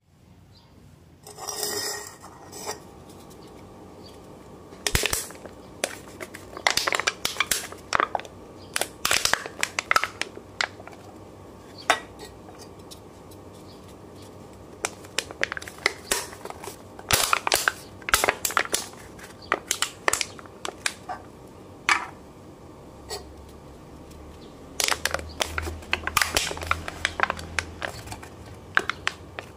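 Aluminium beer cans being squeezed and crushed by hand, the thin walls buckling in clusters of sharp metallic crackles and pops, with short pauses between squeezes.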